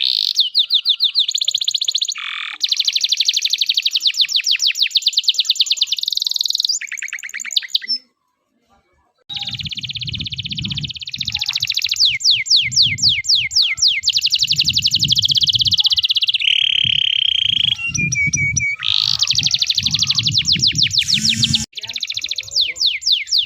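A canary singing a long, unbroken 'loper' song of rapid trills and rolls, high-pitched and loud. The song drops out for about a second roughly a third of the way in, then resumes with a low rumble underneath until shortly before the end.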